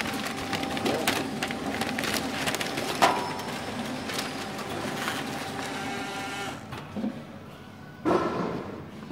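GALA LD packaging machine with a long-dwell cut-and-seal unit running, a steady hum with a high tone and many quick clicks from the mechanism. The tone cuts off about six and a half seconds in, and the sound drops before a short, louder noise near the end.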